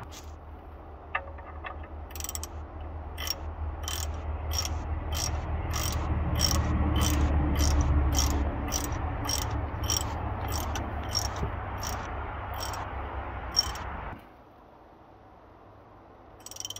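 Hand ratchet wrench clicking steadily, about two clicks a second, as it is worked back and forth on a fastener. A low rumble runs underneath and stops abruptly about two seconds before the end.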